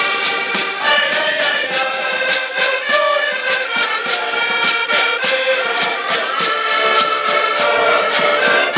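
Several diatonic button accordions playing a Portuguese folk tune together in chords, over a steady percussion beat.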